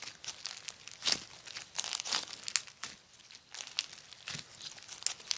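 Foam-ball slime (floam), made slightly sticky, being squeezed, folded and stretched by hand: irregular crackling and sticky snapping, several small crackles a second.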